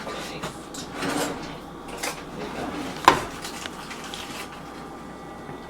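A kitchen utensil scraping and clinking against dishes as a little butter is portioned out, with one sharp knock about three seconds in.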